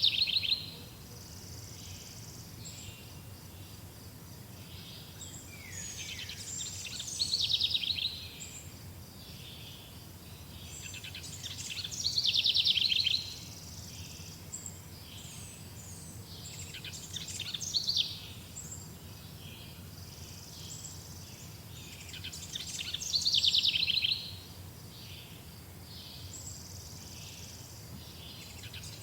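Forest birdsong: one songbird repeats a loud, high song four times, about every five to six seconds, each song about a second and a half long and growing louder toward its end. Other birds chirp faintly between the songs over a low steady background hum.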